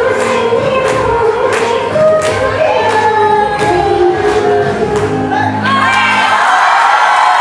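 Recorded song with singing over a regular percussion beat, playing for a stage dance. Near the end the music's bass drops out and the audience begins clapping and cheering.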